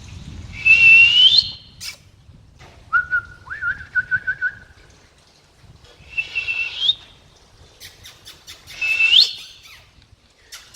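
American Akita puppy whining: three high-pitched whines that each rise in pitch, and a lower wavering whine between the first two. A few light clicks come between the last two whines.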